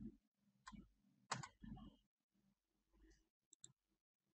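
Several faint, separate computer mouse clicks, heard through near silence.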